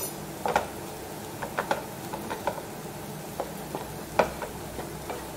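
Wooden spatula stirring diced potatoes in a nonstick frying pan: irregular soft knocks and scrapes against the pan, a dozen or so, over a steady background.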